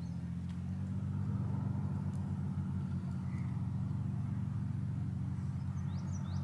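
An engine running steadily at a constant speed, a low even hum.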